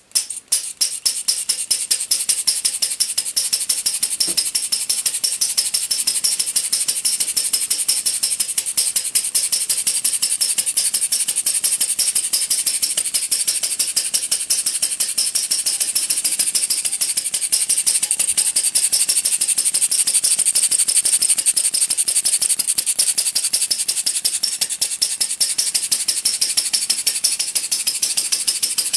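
RMC Paradox Type SB3a slant-single non-compression model engine running on gasoline, fired by an old Ford buzz coil: a fast, steady rattle of sharp clicks. The clicks come separately at first and merge into a continuous run within the first second.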